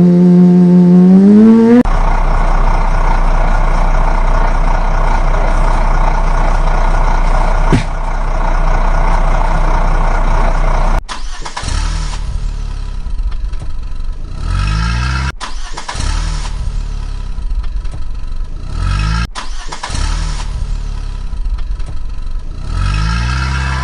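Vehicle engine sound effects: an engine revs up over the first two seconds and runs steadily, then from about halfway an engine-start-and-run clip plays, cut off and restarted three times.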